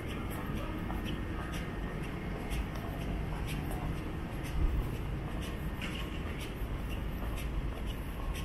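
Footsteps scuffing on pavement, short irregular scrapes over a steady low rumble of street noise.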